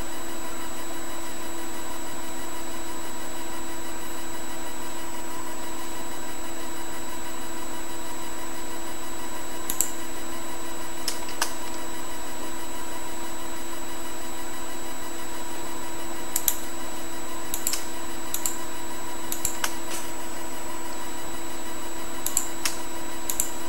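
Steady hum of a computer with several fixed tones, with about nine short mouse clicks scattered through the second half.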